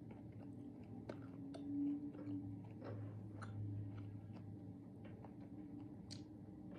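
Chewing a mouthful of Dubai chocolate, with scattered small, crisp clicks of the crunchy filling being bitten.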